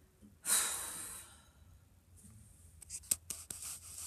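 A loud breathy exhale, like a sigh, about half a second in, followed near the end by a few sharp clicks and knocks as the phone recording her is handled.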